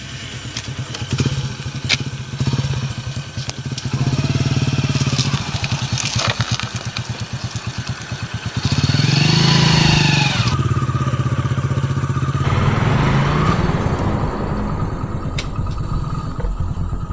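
Motorcycle engine running with a fast, even beat, growing louder about four seconds in and again around nine seconds.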